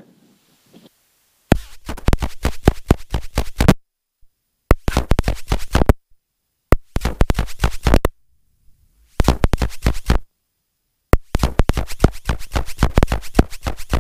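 Turbocharged Lycoming flat-four engine of an Enstrom 280C helicopter cranking on the starter during a start attempt, a fast run of rough pulses that comes in five spells and cuts off suddenly between them; the engine has not yet settled into a steady run.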